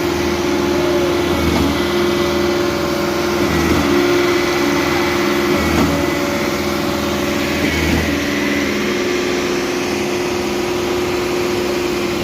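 Concrete pump running steadily, its engine note holding level, with a low surge about every two seconds from the pump's alternating pumping strokes.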